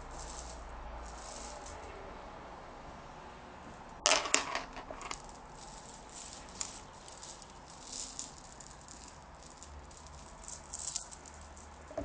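Small hard objects being handled and rattled: a loud burst of rattling about four seconds in, then scattered lighter rattles and clicks.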